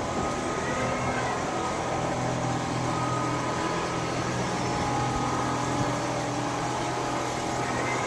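Single-needle quilting machine running steadily, a constant mechanical noise with a low hum and a few faint held tones.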